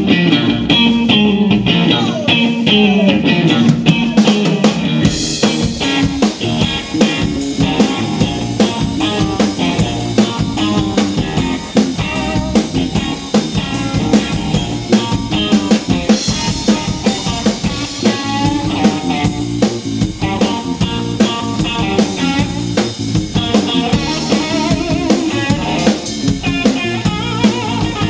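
Live blues-rock band playing an instrumental intro. A Stratocaster-style electric guitar plays a riff alone at first. Drums with cymbals and a bass guitar come in about five seconds in, and the full band plays on together.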